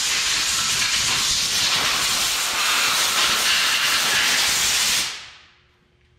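Compressed-air blow gun on a shop air hose giving a long, steady, loud hiss that dies away about five seconds in.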